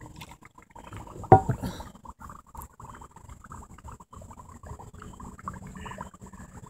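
Dry ice bubbling in hot soapy water in a cup: a dense, steady crackle of small pops and fizzing as the bubble foam dome grows. One louder sharp knock sounds about a second in.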